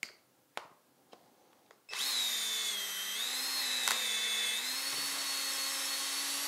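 Cordless drill spinning a Gamma coax cable stripper onto the end of an RFS plenum coaxial cable, stripping it. A few light clicks come first, then about two seconds in the drill starts and runs for about five seconds with a steady whine that sags slightly in pitch under load and picks back up before it stops.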